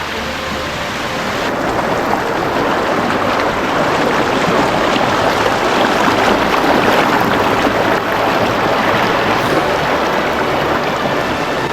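Econfina Creek rushing, a loud, steady roar of flowing water that swells a little a couple of seconds in.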